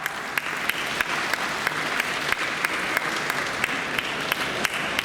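Audience applauding, with sharp claps falling into a steady beat of about three a second over the general clapping.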